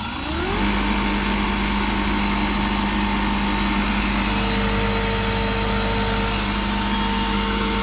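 Refrigerant recovery machine starting up: its motor spins up over about half a second, then runs at a steady hum while recovering R-410A refrigerant from the system.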